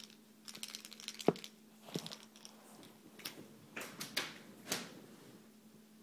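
A small rattle-filled toy mouse clattering and rattling in short bursts of clicks and taps as it is thrown and batted about, the sharpest tap about a second in, over a faint steady hum.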